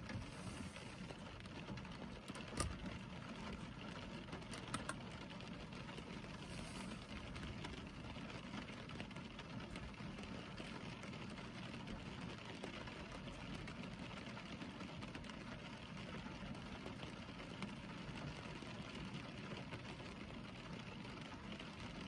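Steady rain on a car's windows and roof, heard from inside the car. There are a few sharper ticks about two and a half and five seconds in.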